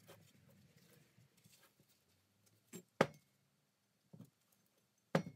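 Scattered knocks and clicks of objects being handled on a workbench, with a sharp knock about three seconds in and another near the end.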